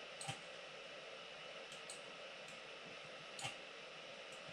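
Computer mouse clicking: two sharp clicks, about a third of a second in and about three and a half seconds in, with a few fainter clicks between, over a steady background hiss.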